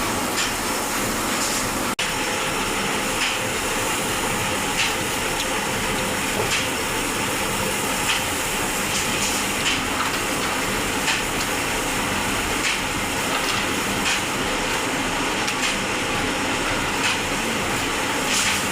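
Arc welding: the steady crackling hiss of a welding arc, with short sharp ticks about every second and a half.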